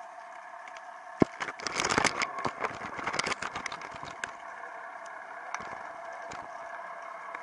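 Underwater recording from a rubber-jig (tai rubber) rig: a steady hum with a flurry of sharp clicks and knocks from about one to four seconds in, with a strong knock at the start of it, as the jig and rig bump over the rocky bottom. A few single clicks follow later.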